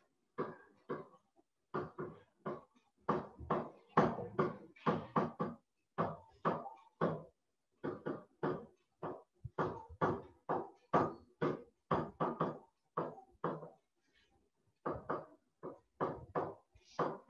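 A teacher's voice speaking in short phrases with brief pauses, talking through a worked maths example.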